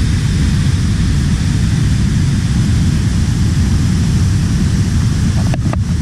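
Waterfall pouring into a rock pool: a loud, steady, deep rushing roar with a hiss of spray above it. Near the end there are a couple of faint clicks.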